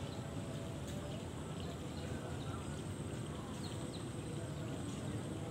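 Steady low outdoor background rumble, with two faint short bird chirps about three and a half seconds in.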